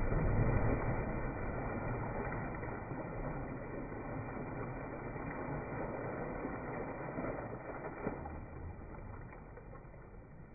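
Water splashing and churning from a dive, then a person swimming, fading gradually toward the end.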